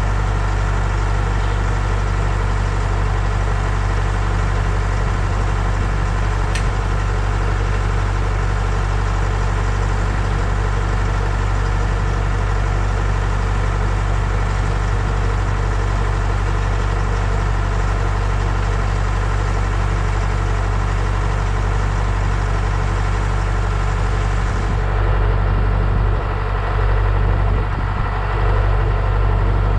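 An engine idling steadily with a constant low hum; about 25 seconds in, the low rumble wavers a little.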